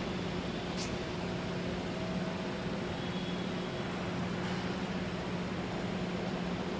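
Steady hum and hiss of car assembly plant machinery, with a brief faint chirp about a second in.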